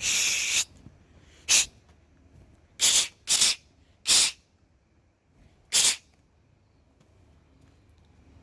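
Water spraying in six short hissing bursts, the first and longest at the start and the rest spread over the next six seconds, two of them close together.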